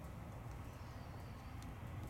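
Quiet room tone: a low steady hum with a few faint light ticks.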